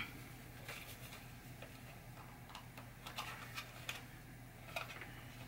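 Scattered faint clicks and light taps of small parts and tools being handled on a workbench, over a low steady hum.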